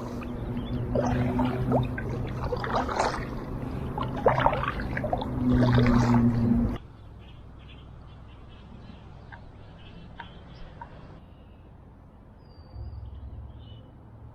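Water splashing and trickling around a kayak and its paddle, over a low steady hum; about seven seconds in it cuts off abruptly to a quiet background with a few faint bird chirps.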